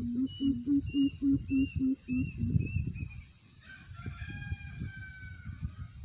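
Greater coucal calling: a fast run of deep, two-pitched hoots, about three a second, that stops about two and a half seconds in. About a second later a rooster crows faintly, with a thin steady high whine behind both.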